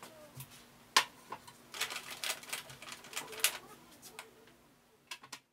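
Clicks, knocks and rustling of small items being handled and set down on a counter: one sharp click about a second in, then a busy run of clicks from about two seconds in, over a steady low hum.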